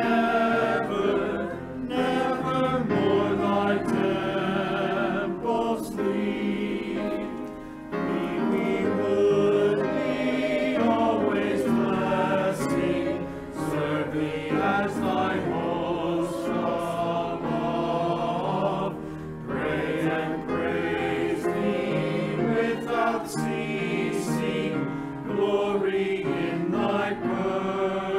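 Mixed church choir singing a hymn anthem in parts, with grand piano accompaniment.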